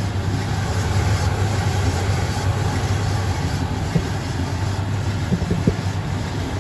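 Indesit IDC8T3 condenser tumble dryer running, its motor humming steadily as the drum turns, with a couple of brief knocks in the second half.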